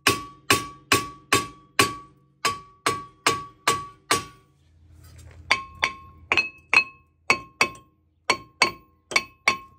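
Hammer blows on a rust-seized front brake rotor of a Chevy Sonic, struck on the hub face between the wheel studs. About two to three blows a second come in two runs with a short pause between them, each blow ringing metallically. The rotor is fused to the hub by rust, and the blows are knocking it loose.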